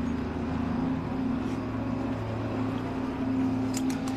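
A steady low hum of two held tones, with a few sharp clicks near the end.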